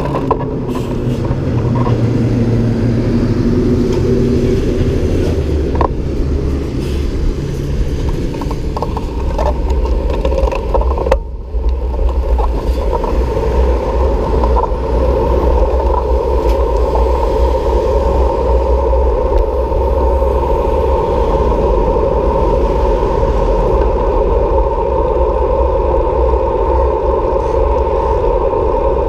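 Road traffic heard from a moving bicycle: a steady low rumble with motor vehicles going by, one engine note sliding down and back up in the first few seconds.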